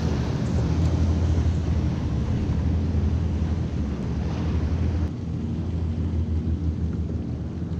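Wind buffeting the camera microphone on open water: a steady low rumble that drops a little about five seconds in.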